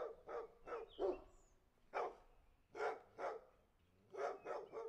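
A dog barking, about ten barks in short runs of one to four.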